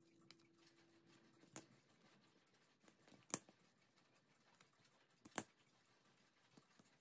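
Scissors snipping off the excess leather at the edge of a cuckoo-clock bellows: three short, sharp snips about two seconds apart, otherwise near silence.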